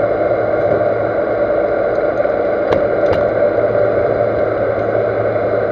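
Metal lathe running steadily at low spindle speed, a steady hum with a constant whine, with two sharp clicks a little under a second apart about three seconds in.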